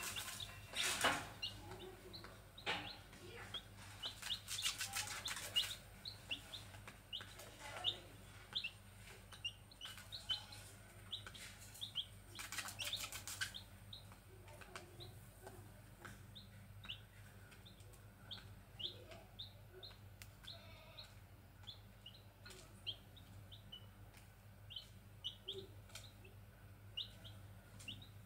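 Grey junglefowl chicks peeping: short, high chirps come a couple of times a second throughout. In the first half a few short bursts of scratchy rustling are mixed in.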